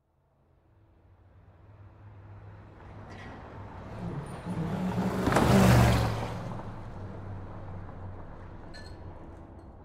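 City traffic fading in, with a motor vehicle passing close by: a rushing noise over a low engine hum that swells to its loudest about five and a half seconds in and then fades away.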